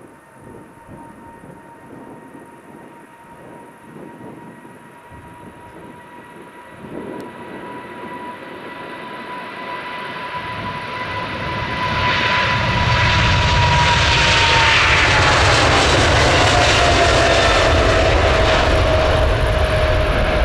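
Departing widebody jet airliner on its takeoff climb, its engines growing steadily louder as it approaches until they are a loud roar. As it passes, the high whine of the engine fans slides down in pitch.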